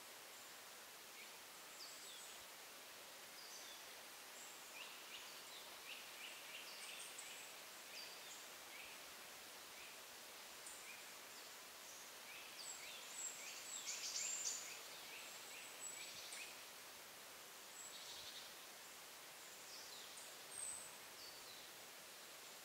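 House sparrows chirping faintly: short high chirps come and go over a steady outdoor hiss, with a busier flurry of chirps about halfway through.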